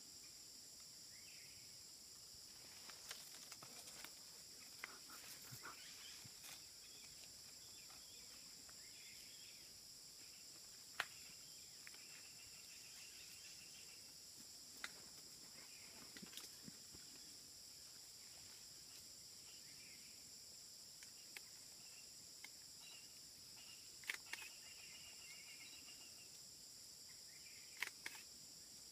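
Faint, steady high-pitched insect drone in several bands, with a few short chirps and scattered sharp clicks, the loudest about eleven seconds in.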